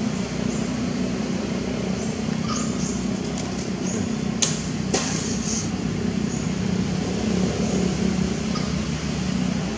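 Steady background hum and hiss, with two sharp clicks about half a second apart near the middle.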